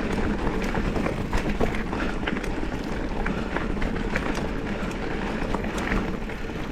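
Mountain bike rolling fast over a dirt singletrack: a steady rush of tyre and wind noise with frequent short clicks and rattles from the bike over rough, rooty ground.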